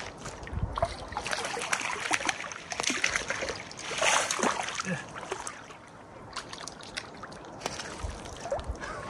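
A small hooked brook trout splashing at the water's edge as it is scooped into a landing net, with scrapes and rustles of the net and shoreline brush. The splashing is loudest about four seconds in.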